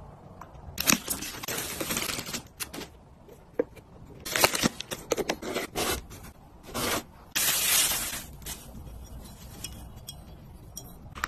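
Close-up handling sounds in irregular bursts: ceramic dishes clinking and scraping on a hard countertop, and a papery rustle as tissues are pulled from a tissue box.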